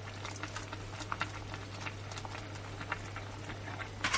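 Fish stock bubbling in a pot with prawns in it: many small, irregular pops of bursting bubbles over a steady low hum, with a louder click near the end.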